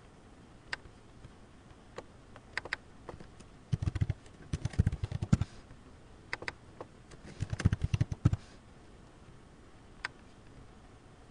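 Computer keyboard typing in two short bursts of rapid keystrokes a few seconds apart, with a few single clicks before and after.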